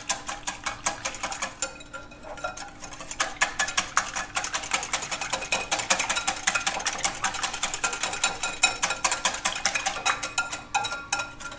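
Metal wire whisk beating a thin milk-and-egg liquid in a glass bowl: rapid clicking and tapping of the wires against the glass and a light sloshing, with a brief let-up about two seconds in.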